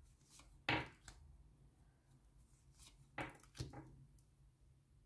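Three short, soft knocks in a quiet small room: one a little under a second in, then two close together past three seconds.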